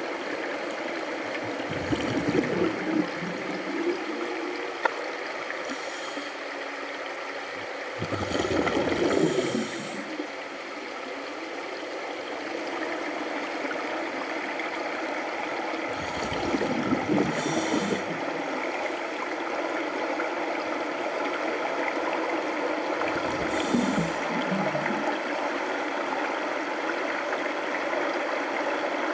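Underwater recording of scuba divers' breathing: a steady rush of water, with a regulator exhaling a deep gurgle of bubbles four times, about every seven seconds.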